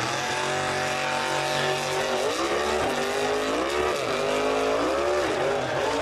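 Drag-racing car's engine running hard, steady for about two seconds, then rising and falling in pitch three times as the car launches into a wheelstand.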